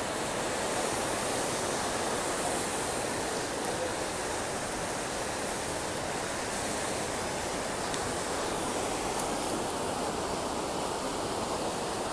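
River in flood after a storm: fast, muddy floodwater rushing over rocks and rubble in a steady, unbroken rush.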